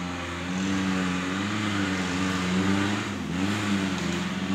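Off-road 4x4's engine running, its revs rising and falling gently.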